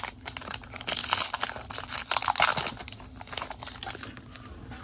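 Foil wrapper of a Pokémon TCG booster pack crinkling and tearing as it is torn open by hand, the crackling dying away after about three seconds.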